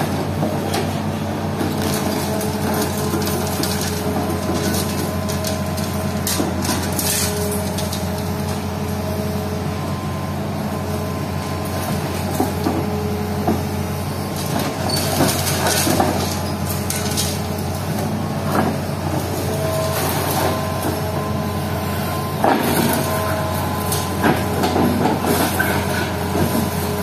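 Hitachi Zaxis hydraulic excavator's diesel engine running steadily under load, with a steady hydraulic whine, while its demolition pulverizer crushes concrete. Cracking, crunching and clattering of broken concrete and debris come in bursts, mainly around the middle and again near the end.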